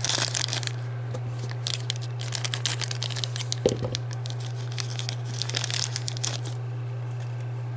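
Plastic and paper packaging of a miniatures booster pack being torn open and crinkled in three spells of rustling, with a single soft knock about halfway through.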